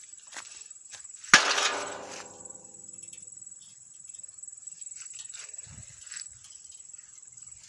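A board strikes a metal lawn mower plate once, about a second in, and the plate rings for about a second as it fades. Faint steady insect chirring runs underneath.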